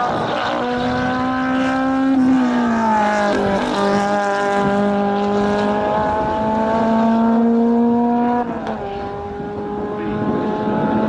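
Engine of a green hatchback race car running hard, its pitch held high and steady with brief drops at gear changes about two, three and a half and eight and a half seconds in.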